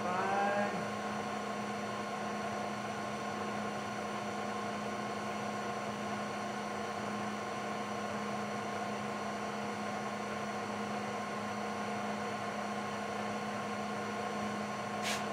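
Steady electric motor hum with several even tones, from the Bridgeport milling machine running, and a single sharp click near the end.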